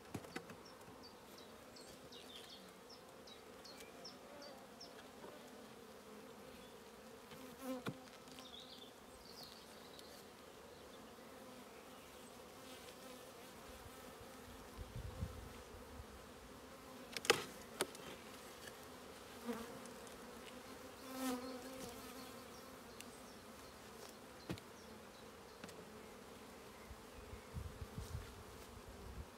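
Honeybee colony buzzing steadily over an open hive, a low even hum. A few knocks and clicks cut through it, the sharpest a little past halfway, as frames are worked with a hive tool.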